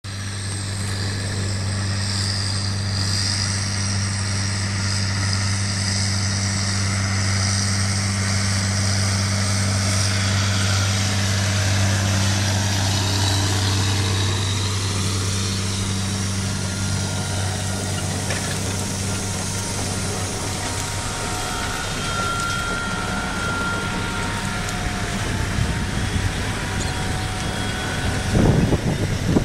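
John Deere 9420 four-wheel-drive tractor's diesel engine running steadily under load as it pulls an air seeder. The steady drone fades in the last third as the rig moves away, leaving a thinner high whine, and wind buffets the microphone near the end.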